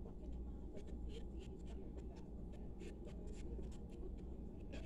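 Quiet eating sounds: chewing and short wet mouth clicks as bulla cake and avocado are eaten, with the soft bread pulled apart by hand, over a steady low hum.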